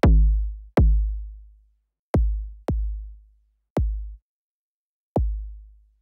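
Six hits from a distorted sine patch in the Vitalium software synth, like an electronic kick drum. Each starts with a click, drops fast in pitch into a deep low boom and dies away, with the sine driven through soft-clip distortion.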